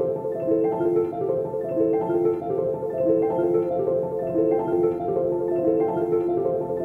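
Background music led by a bright mallet-percussion melody of short, quick notes over a steady accompaniment.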